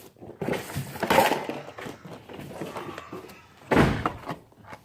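Rustling handling noise, then a single loud thump a little under four seconds in.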